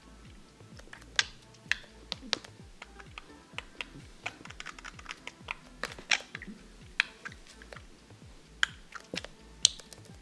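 Irregular sharp clicks and taps from a budgerigar moving about on a wooden floor beside a plastic box, a few louder ones standing out among many light ones, with background music underneath.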